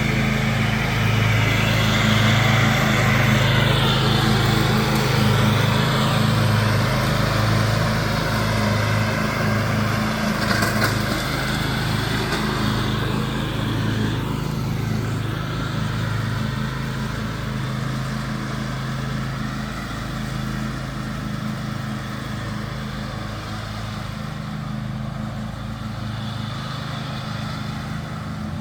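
John Deere X500 riding lawn tractor's engine running steadily under mowing load, with the blade deck whirring. The sound swells and dips as the mower turns and passes, and grows a little fainter in the second half as it moves away.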